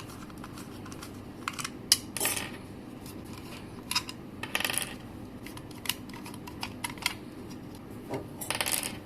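Screwdriver unscrewing the contact screws of a fire siren: scattered clicks and a few short scraping turns, with small metal parts clinking.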